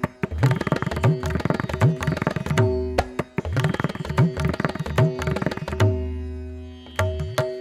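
Background music: fast hand drumming over a steady drone. The drumming stops for about a second near the end, then picks up again.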